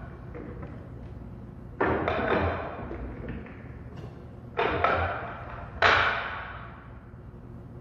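Pool balls clacking on a pool table during straight-pool shots. There are three sharp clacks, about two seconds in, near five seconds and a second after that, each fading over about a second. The last clack is the loudest.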